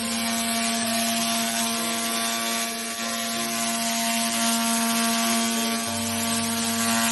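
Handheld fiber laser cleaning machine in operation: a steady hum with a dense, even hiss over it.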